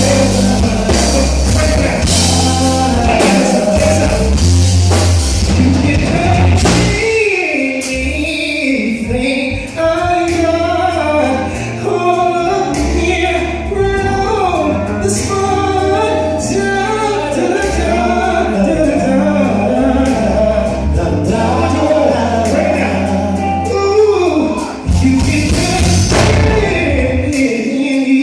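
R&B singing over a band backing with a steady bass line and drums and cymbals. The bass and drums thin out for a few seconds about seven seconds in, then come back under the voice.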